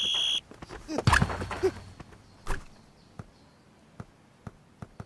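A high steady whistle-like tone cuts off just after the start. About a second in a football is struck hard, a loud impact with a rushing low rumble lasting about half a second. About a second and a half later there is a single thud, then only faint scattered ticks.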